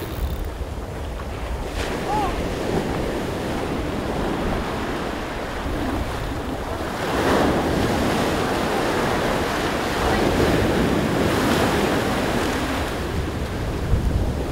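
Ocean surf breaking and washing up the beach, with wind buffeting the microphone as a low rumble. The wash swells louder about halfway through and again a few seconds later.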